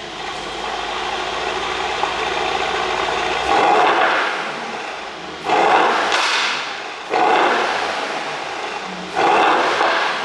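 Mercedes-AMG GT 63 S's ECU-tuned twin-turbo V8 exhaust. The engine note builds steadily for the first few seconds, then surges sharply about every two seconds and falls away between surges.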